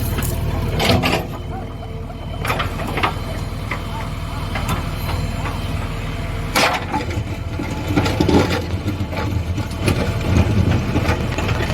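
Diesel engine of a JCB backhoe loader running steadily under a low rumble, with several sharp knocks and clatters over it.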